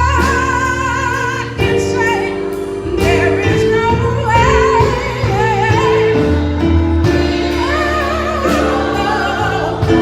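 Gospel choir singing, the upper voices wavering with a marked vibrato over steady, held low notes.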